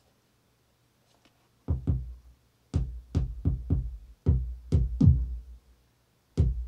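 Electronic 808- and 909-style kick drum samples played by a Native Instruments Maschine as its sample browser is scrolled with prehear on. About ten short, deep thumps at an uneven pace start a little under two seconds in.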